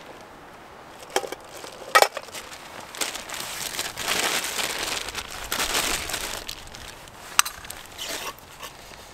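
Plastic pouch crinkling and rustling as it is handled and opened, with a sharp metal clink about two seconds in and another near the end.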